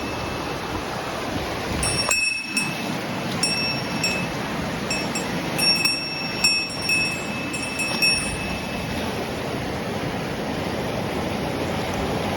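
Mountain stream water rushing steadily. A small metal bell jingles in short rings several times through the first two-thirds, each ring starting with a click and ringing on briefly.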